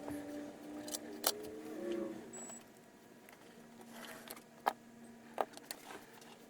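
Light clicks and taps of small tools and parts being handled at a workbench during soldering work, a few sharp single clicks standing out, over a faint steady hum.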